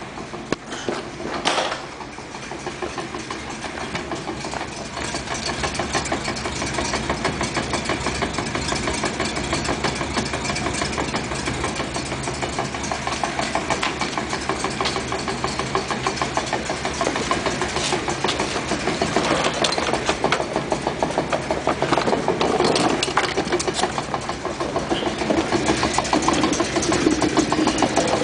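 The 354 Hemi V8 of a 1956 Chrysler New Yorker running with the car on stands, the propeller shaft and rear axle turning, with a rapid, even ticking. This is the weird noise being traced at the propeller shaft trunnion joint and the rear axle. It dips briefly early on and grows louder in the last third.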